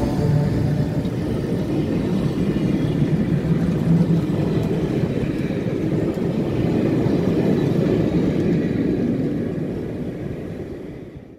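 A train of vintage passenger coaches rolling past: a steady rumble of steel wheels on the rails that fades away over the last couple of seconds.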